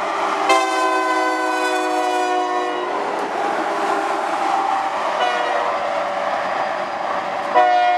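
Diesel freight locomotive's multi-note air horn sounding a chord: a long blast about half a second in, a short blast near the middle, and another long blast starting near the end, in the pattern of a grade-crossing warning. Underneath is the steady noise of the passing locomotives and rolling train.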